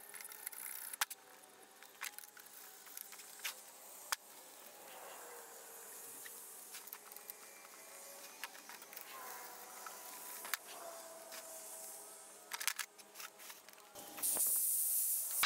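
Sped-up workshop sounds of hand-cleaning a small engine on a bench: scattered sharp clicks and taps with light scraping and a thin buzzing. About fourteen seconds in, a handheld rotary tool starts and runs loud with a steady high whine.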